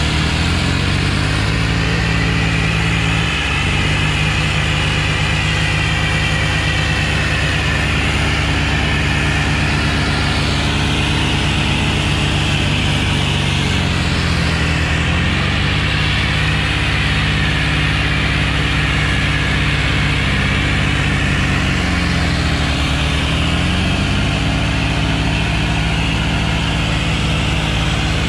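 Powertrac Euro 60 tractor's diesel engine running steadily under load while pulling a harrow through soil. Its engine speed dips briefly and recovers three times.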